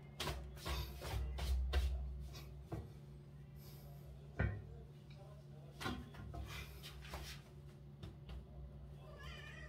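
Scattered knocks, rubbing and clicks of things being handled, busiest in the first two seconds, with one sharp thump about halfway, over a faint steady low hum. A dog barks once right at the end.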